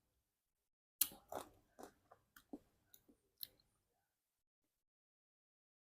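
Close-up mouth sounds of someone chewing fruit: a run of short, wet, crunchy chews starting about a second in and lasting roughly two and a half seconds, the first the loudest.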